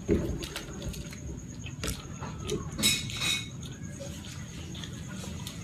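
Close-miked eating and drinking sounds: small mouth clicks, then sips from a glass of iced cola with ice clinking against the glass, loudest about three seconds in.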